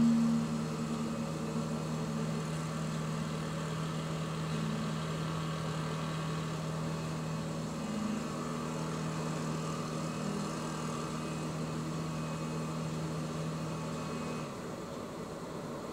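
Small cruiser's engine running steadily at low speed, a low even hum; the hum stops about fourteen and a half seconds in, leaving only a faint hiss.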